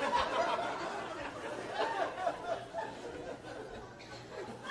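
Audience laughing, the laughter slowly dying down and starting to build again near the end.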